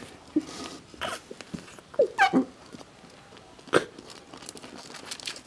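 Short wordless vocal sounds: a couple of quick squeaky hums that slide up and down about two seconds in. There is one sharp tap or click a little after halfway, and a few faint ticks.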